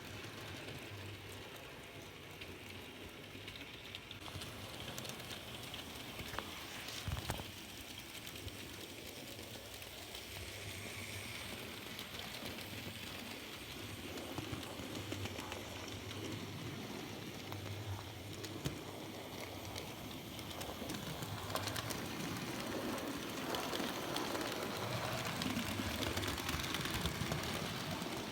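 N gauge model train running on test track: a steady running noise with many small clicks. One louder knock about seven seconds in, and the sound grows louder in the last few seconds.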